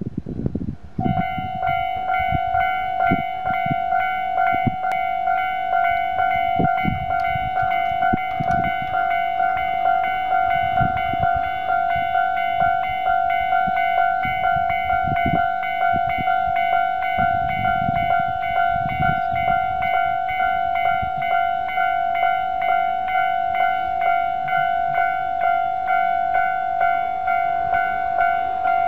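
Japanese railway level-crossing warning bell starting about a second in and ringing on steadily, an electronic ding repeated at an even pace in the standard tone. Wind buffets the microphone at the start.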